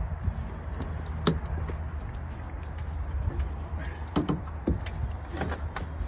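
A few sharp clicks and knocks from handling in a vehicle, the loudest about a second in and a cluster near the end, over a steady low rumble.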